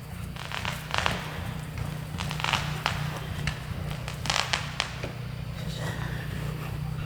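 Firecrackers popping in the distance, a scatter of sharp cracks and crackles at irregular intervals over a steady low hum.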